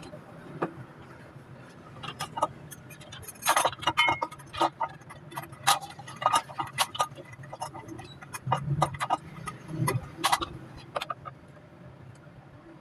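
Irregular clicks, taps and clinks of hand work on small hard parts, bunched between about two and eleven seconds in, over a steady low hum.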